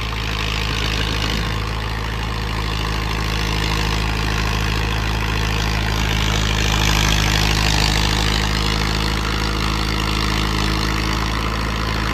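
Mahindra Yuvo 575 DI tractor's four-cylinder diesel engine running steadily under load while it pulls a 7-foot rotavator through the field. It gets a little louder around the middle as the tractor comes closer.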